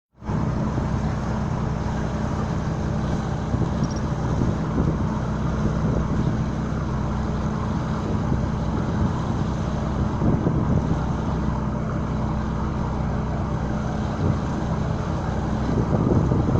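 Steady engine drone, an even low hum with a rushing noise over it, running without change.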